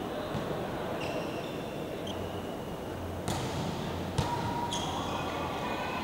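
Indoor volleyball court sounds: a steady murmur in the hall, short high sneaker squeaks on the court floor, and two sharp ball hits about three and four seconds in.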